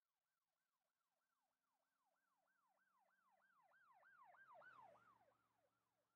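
Faint emergency-vehicle siren in a fast yelp, its pitch sweeping up and down about three times a second, growing louder to a peak near five seconds in and then fading as it passes.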